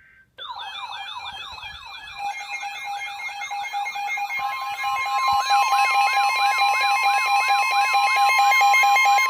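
Weather radio emergency alert alarm: a siren-like wail sweeping up and down about three times a second over a pulsing tone, starting suddenly and growing louder. About four and a half seconds in, a steady warning tone joins it, sounding ahead of the spoken warning message.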